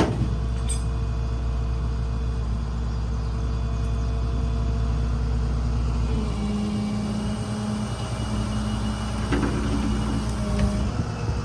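Rollback tow truck's engine running steadily to drive the winch pulling a shed up the bed. About six and a half seconds in, the deep rumble drops and a steadier, higher hum takes over for a few seconds.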